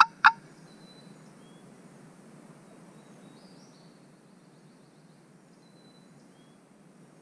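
The last two notes of a rapid series of hen-turkey yelps on a hunter's turkey call, each note dropping in pitch, stopping a moment in; then still woods with a few faint, distant songbird chirps.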